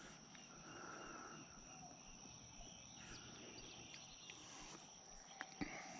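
Near silence, with a faint, steady, high-pitched insect drone and a couple of small clicks near the end.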